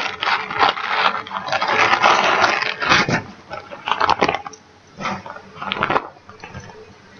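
Clear plastic zip-top project bags rustling and crinkling as they are handled and sorted, with a few light clicks and knocks. The rustling is densest over the first three seconds, then comes in short bursts.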